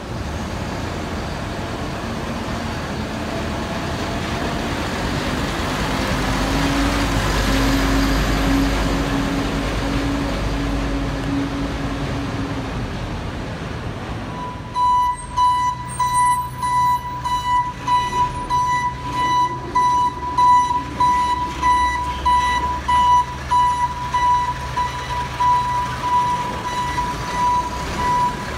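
Hino 500 rear-loader garbage truck's diesel engine running, swelling louder for several seconds with a steady hum partway through. About halfway in, its reversing alarm starts beeping roughly once a second over the engine, the signal that the truck is backing up.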